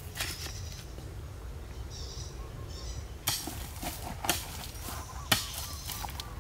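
A long-handled digging tool striking into stony earth about once a second, starting about three seconds in, each blow a sharp thud with loose soil and gravel scattering. Before that, faint knocks of rocks being set on a stone wall.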